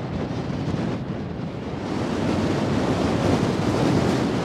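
Wind buffeting the microphone: a steady rushing noise, heaviest in the low end, that grows stronger about halfway through.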